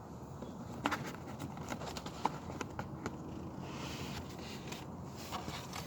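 Light scattered clicks and rustles of hands handling and pressing a glued insert into a car door panel, over a steady low rumble.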